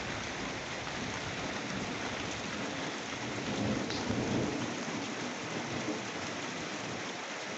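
Thunderstorm: steady rain falling, with a low rumble of thunder swelling a little about halfway through.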